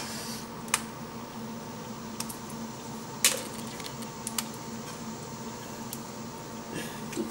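Blue crab shell clicking and cracking as it is pulled apart by hand: a handful of scattered sharp snaps, the loudest about three seconds in. A steady low hum runs underneath.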